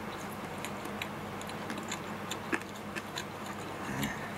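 Faint, irregular small clicks and ticks over a steady low room hum, with a short low hum near the end.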